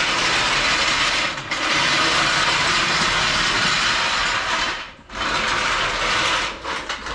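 Trolley (floor) jack rolled across a concrete driveway, its wheels rattling and grinding in three long pushes with short breaks about a second and a half in and about five seconds in.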